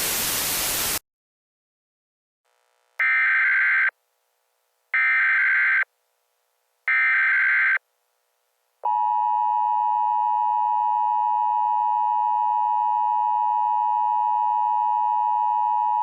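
Emergency Alert System activation: a one-second burst of static, then three one-second bursts of the SAME digital header tones about a second apart, then the steady two-tone EAS attention signal, starting about nine seconds in.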